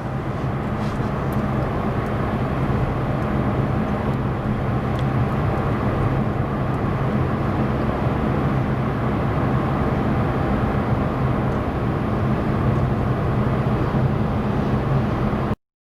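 Inside the cabin of a Mazda with a 2.0 petrol engine cruising at about 2000 rpm: a steady low engine drone mixed with tyre and road noise. The sound cuts out briefly near the end.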